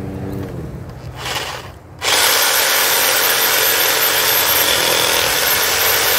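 Hyper Touch 6.5 amp corded reciprocating saw: a low hum fades out at the start, then about two seconds in the saw starts abruptly and runs steadily at full speed, its blade cutting through a birch limb.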